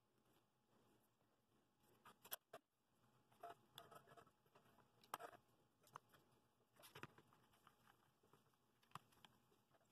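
Faint, scattered taps and clicks of small wooden model-car parts and a one-handed bar clamp being handled as glued pieces are clamped together, the loudest knocks about two, five and seven seconds in.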